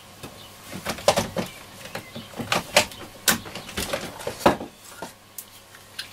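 A string of irregular clicks, knocks and rustles from hands handling the portable radio and a pair of PP9 batteries.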